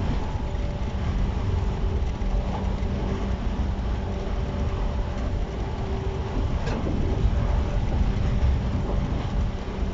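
JR East 115 series electric train standing at a platform, humming steadily with a low rumble and a few held tones, and one short sharp click about two-thirds of the way in.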